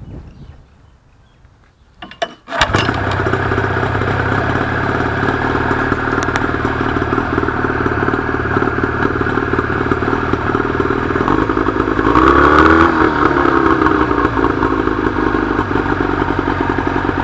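A 30 HP Mariner/Mercury two-stroke outboard motor catches about two and a half seconds in and runs steadily, briefly revving up and back down about twelve seconds in. It is running and charging the battery at about 13.8 to 14.5 volts through its newly fitted scooter rectifier/regulator.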